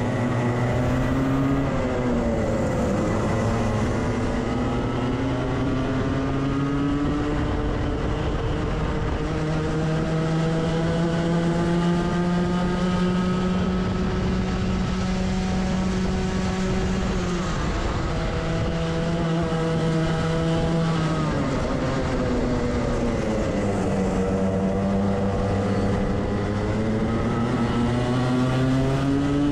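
Onboard sound of a Club100 kart's Rotax Max 125cc two-stroke engine at racing speed. Its pitch climbs steadily for several seconds, then drops sharply about four times as the kart slows for corners.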